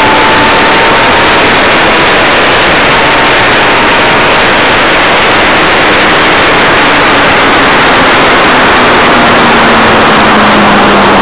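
Loud wind roar on an onboard camera's microphone at track speed, with a vehicle's engine note faint underneath, holding a nearly steady pitch that eases down slightly near the end.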